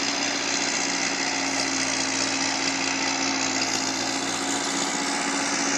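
Massey Ferguson 265 tractor's three-cylinder diesel engine working hard to pull a heavily loaded sugarcane trolley, so heavy that the front wheels lift off the ground. The engine note holds steady throughout.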